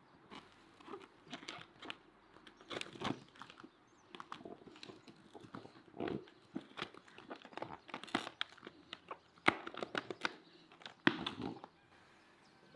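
Cabbage leaves and vegetables being pressed by hand into a large plastic jar: irregular crunching and crackling of the leaves and crinkling clicks from the plastic, with the sharpest snaps near the end.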